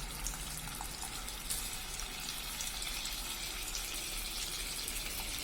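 Masala-coated boiled eggs sizzling steadily in a little hot oil in a frying pan, with fine crackles, a little brighter from about a second and a half in.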